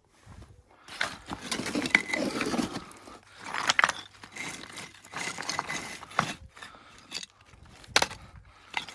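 Building stones knocking and scraping together as they are handled: a run of sharp clacks, the loudest about two seconds and eight seconds in, among gritty scraping.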